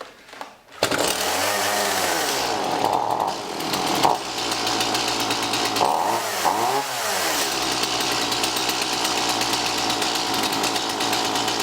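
Stihl MS 170 chainsaw's small two-stroke engine running, revved up and back down twice, then holding steady.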